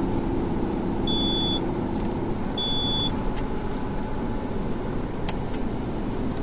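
Steady road and engine noise inside a car cruising on an expressway. Two short, high beeps sound about a second and a half apart, and a single click comes about five seconds in.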